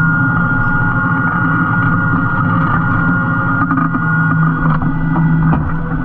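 Tractor engine running steadily under load as it pulls a reversible plough through the ground, with a few sharp knocks or cracks from the plough in the second half.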